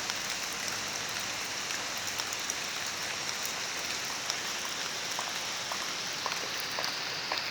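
Steady rain falling: a dense even hiss with scattered individual drops tapping through it.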